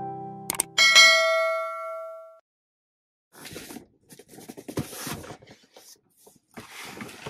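A subscribe-button sound effect: a click and a bright bell chime that rings out and fades over about a second and a half. After a short silence comes the irregular rustling and scraping of a large cardboard shipping box being handled and set down.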